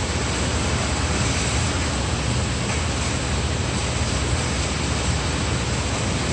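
Steady background rumble and hiss, heaviest in the low end and unchanging, with no distinct events.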